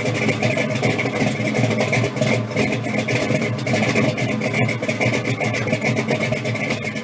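1970 Chevrolet Camaro's engine idling steadily.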